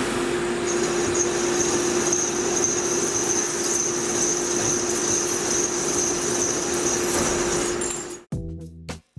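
CNC lathe (Tormach Slant Pro) cutting a steel spindle part under flood coolant: a steady spindle hum and coolant spray, with a high cutting whine that starts about a second in and stops near the end. Just before the end the machine sound cuts off and music begins.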